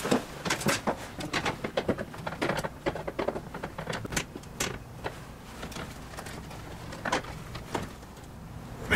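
Irregular clicks, taps and rattles of stiff electrical wires being handled and worked into a metal breaker panel, many in quick succession at first, then fewer and more spread out.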